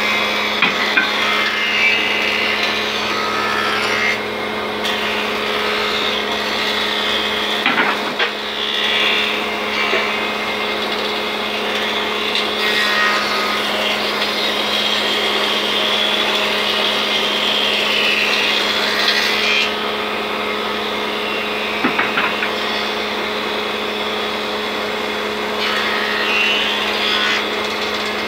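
Old cast-iron thickness planer running with a steady hum, its cutterhead planing wooden boards fed through one after another. The high cutting noise swells while a board is in the machine and drops back to the motor's hum between boards, several times over.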